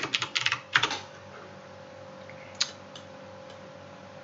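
Computer keyboard typing: a quick run of keystrokes in the first second, then two single clicks later on over a faint steady hum.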